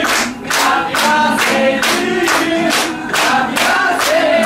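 A group of people singing a birthday song together and clapping along in time, about two claps a second.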